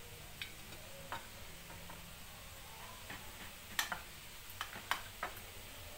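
Steel kitchen knife tapping and scraping against a ceramic plate while slicing the crusts off white bread: a few faint, scattered clicks, most of them in the second half.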